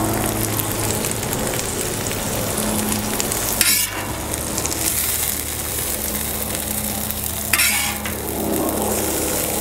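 Steak fajita filling of beef, peppers and onions sizzling steadily on a hot Camp Chef flat-top griddle, with a metal spatula scraping across the steel twice, a few seconds apart.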